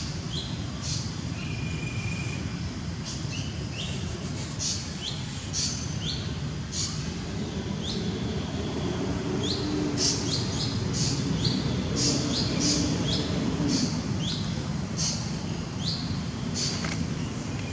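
Birds chirping: many short, quickly rising chirps in irregular runs, over a steady low background rumble.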